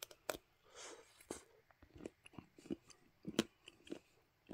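Faint chewing of a dark chocolate with a soft caramel centre (Ferrero Caramel Intenso), with scattered small crunchy clicks from the bite.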